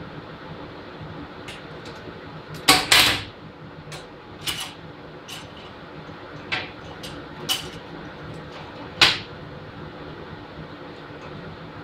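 TIG welding on a galvanized steel garage door hinge: a steady hum broken by a handful of sharp crackles and pops, the loudest pair just under 3 s in. This is the galvanized crackling, the zinc coating spitting under the arc.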